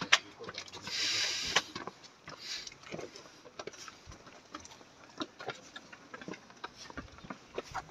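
Scattered, irregular light taps and knocks, with a brief rustling hiss about a second in.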